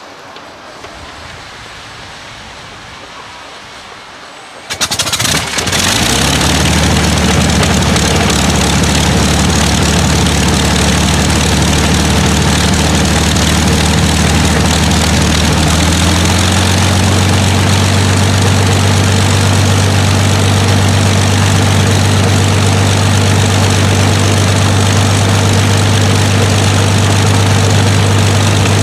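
Rolls-Royce Merlin V12 aero engine starting up on a ground-run stand: it fires and catches suddenly about five seconds in, then runs steadily and loudly. About halfway through its note shifts and settles into a steady lower tone.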